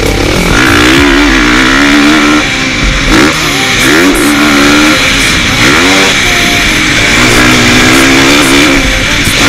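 KTM 450 SX-F motocross bike's single-cylinder four-stroke engine revving hard under the rider, its note climbing and dropping back several times as the throttle is opened and closed.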